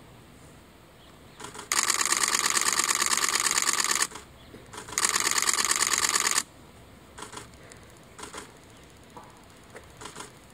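Camera shutters firing in rapid continuous bursts: two long runs of fast clicking, one about two seconds and one about a second and a half, with a few short bursts later.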